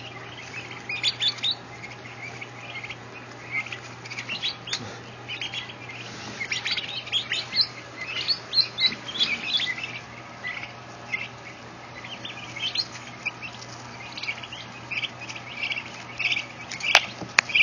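A brood of three-week-old turkey poults peeping, many short high calls overlapping continuously, over a steady low hum.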